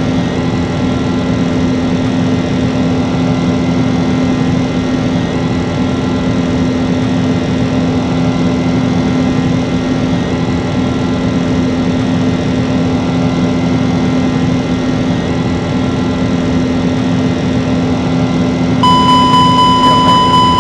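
Airliner engines running with a steady drone and a constant low hum. Near the end a steady high electronic tone starts and continues over it.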